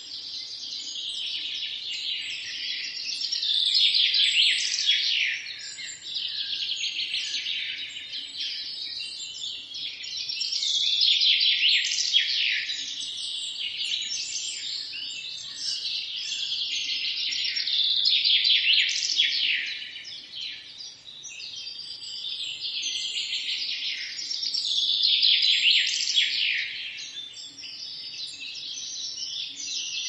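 Songbirds singing: a dense, unbroken chorus of rapid chirps and trills that swells and fades every several seconds.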